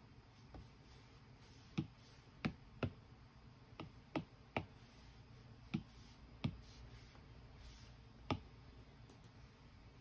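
Apple Pencil tip tapping on an iPad's glass screen: about ten light, sharp taps at uneven intervals.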